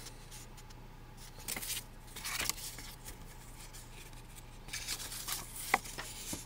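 Paper leaflets and instruction sheets rustling and sliding as they are handled and leafed through, in a few soft bursts, with a sharp tap near the end.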